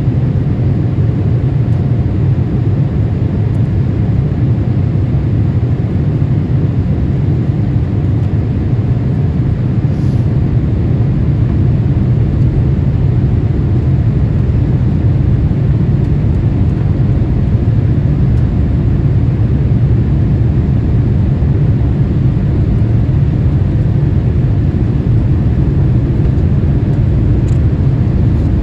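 Cabin noise of an ANA Boeing 787-8 in flight, heard from a seat behind the wing: a steady, deep rumble of the Rolls-Royce Trent 1000 engines and the airflow over the fuselage.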